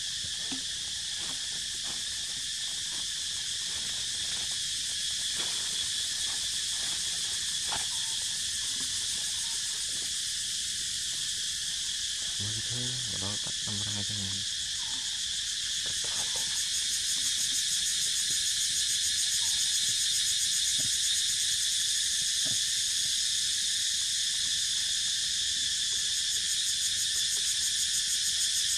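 Dense, steady chorus of tropical insects buzzing in several high bands, growing louder about halfway through. A short low vocal sound is heard just before the middle.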